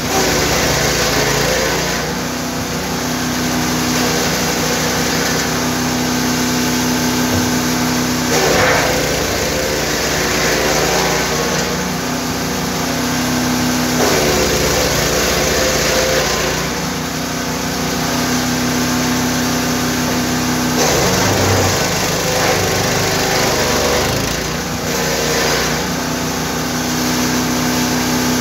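Wood chipper's 9 hp engine running steadily at speed. Several times it gives spells of rough crunching noise, and the engine note dips under load each time, as branches are fed through and chipped.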